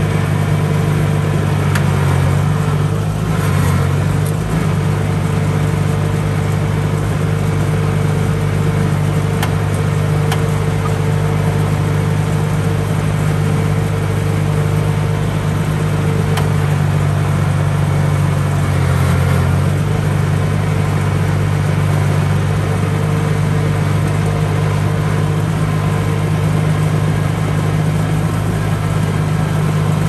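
Rice harvester engine running steadily at an even speed: a loud, low, continuous drone.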